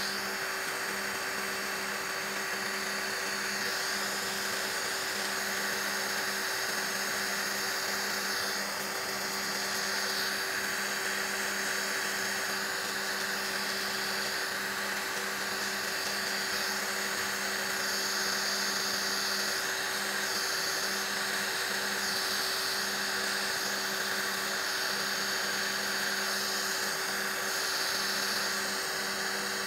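Electric nail drill running at constant speed with a steady whine, its bit grinding old gel off fingernails; the grinding hiss swells and fades as the bit is pressed on and lifted off the nail.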